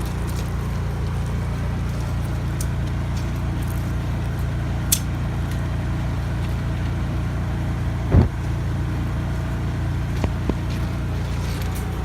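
Steady low rumble of an idling engine, with one thump about eight seconds in and a few faint clicks.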